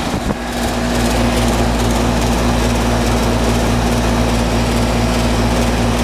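A 2003 Bryant 3-ton R-22 central air-conditioner condensing unit running steadily: the outdoor condenser fan's air rush over the low, even hum of its Bristol reciprocating compressor.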